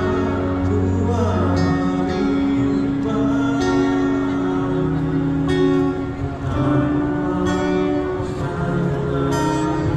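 Background music: a plucked string melody over held low notes.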